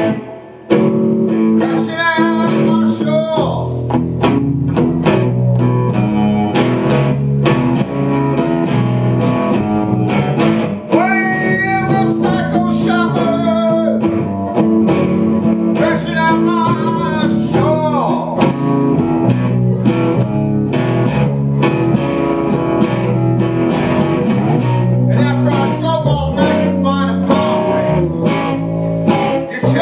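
Live blues on an amplified electric guitar and electric bass, an instrumental stretch with the bass holding a steady low line under guitar lead notes that bend up and down in pitch.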